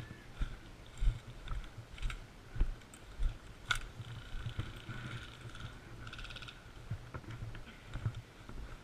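Airsoft game sounds: scattered clicks and low knocks, with one sharp crack about four seconds in and a short rapid rattle of clicks a little after six seconds, typical of airsoft gunfire and gear being handled.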